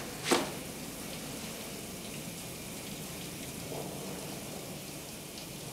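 Steady hiss of water from a running shower, with one short sharp hit about a third of a second in.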